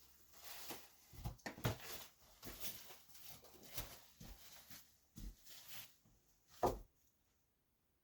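Close handling noise: a run of irregular knocks, scuffs and rustles. The loudest is a thump near the end, after which it falls almost silent.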